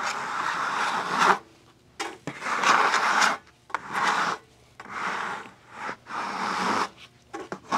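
Repeated rubbing strokes across the face of a freshly sawn monkey puzzle slab, about six in all, roughly one a second with short pauses between them.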